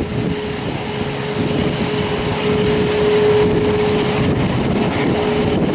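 Jet engines of a Qantas Airbus A380 running as it rolls down the runway, a steady noise with a thin hum that swells slightly midway, heard with wind buffeting the microphone.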